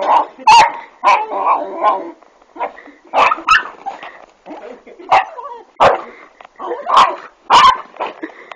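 A dog barking repeatedly at a chicken it is squaring off with: about a dozen short, sharp barks at uneven intervals, with quieter yelps between them.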